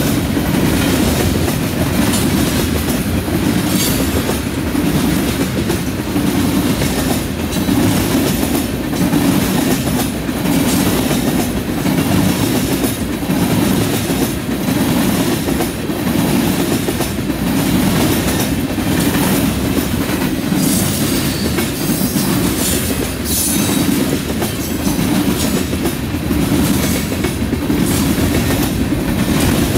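Freight train of tank cars and covered hoppers rolling past close by: a steady rumble of steel wheels on rail, with frequent clicks as the wheels go over the track.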